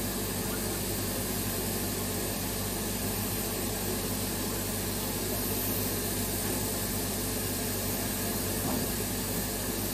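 Steady hiss and low rumble of a narrow-gauge steam train, even throughout with no distinct beats or knocks.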